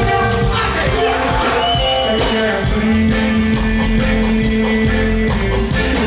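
Live band music with a male singer, a cover of a pop ballad, with a long held note in the middle.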